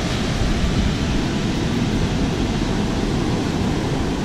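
Steady rush of ocean surf with a low rumble of wind on the microphone.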